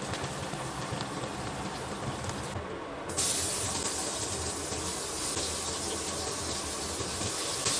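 Frying in a hot pan: a steady sizzling hiss that turns suddenly louder and brighter about three seconds in.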